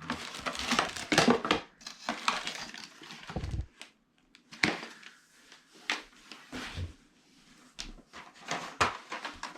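Irregular clicks, knocks and rustling of packaging and plastic parts being handled and pulled apart.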